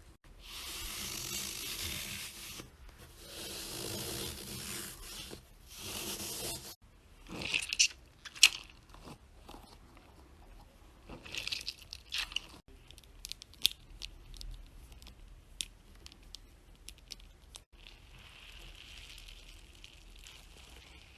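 Fidget toys being handled: three long tearing noises over the first seven seconds, then scattered crackles and sharp clicks, then a faint steady hiss near the end.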